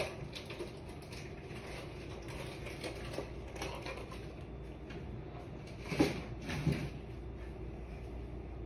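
Quiet room tone with a steady low hum, broken by two soft knocks about six seconds in, less than a second apart.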